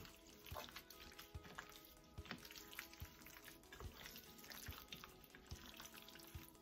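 Faint, irregular wet squishing and light clicking of gloved hands kneading raw chicken pieces in a yogurt and tomato marinade.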